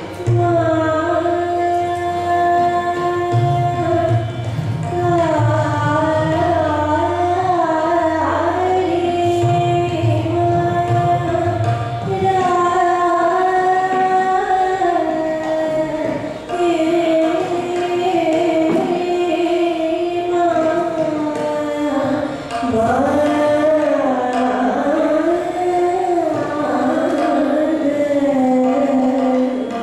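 A woman singing Raga Bhairav in Hindustani classical style. She holds long notes and slides between them in ornamented glides.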